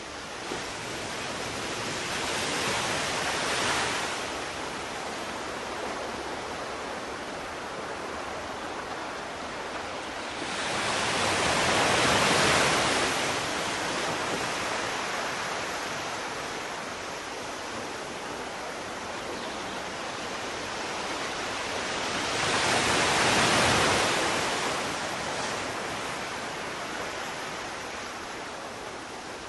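Sea waves washing in: a steady hiss of surf that swells and fades three times, about ten seconds apart.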